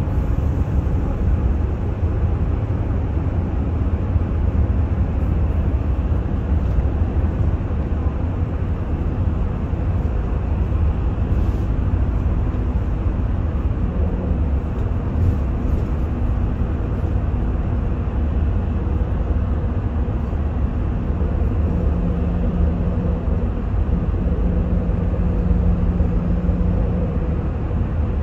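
Daewoo FX116 bus heard from inside the cabin, cruising through a road tunnel: a steady low engine drone mixed with road and tunnel noise. A faint steady hum note joins it for a few seconds near the end.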